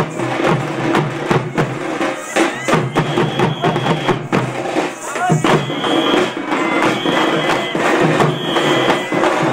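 A troupe of dappu frame drums, struck with sticks, playing together in a fast, dense rhythm. A high held tone comes and goes over the drumming.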